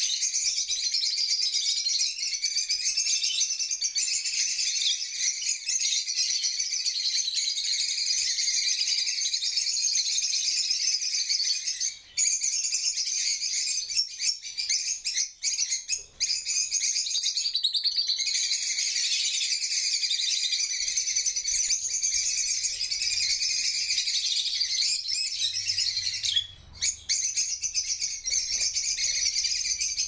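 A flock of peach-faced lovebirds chattering, many shrill chirps overlapping without pause. The chatter drops out briefly a few times around the middle and again near the end.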